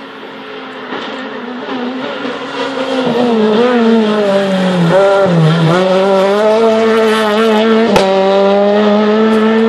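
Rally car at full throttle on the stage, growing louder as it approaches. Its engine pitch rises, dips sharply around five seconds in as the driver changes gear or lifts, then holds high as it passes. A sharp crack comes about eight seconds in.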